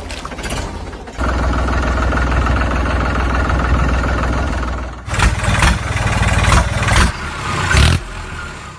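An engine running: steady from about a second in, then uneven and pulsing over the last few seconds.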